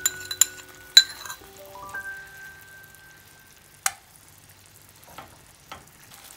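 Tomato passata sizzling faintly in hot olive oil in a stainless-steel frying pan, with a wooden spoon clicking and knocking against the pan as it is stirred, one sharp knock near the middle. Light background music of single plucked notes plays in the first half and then fades out.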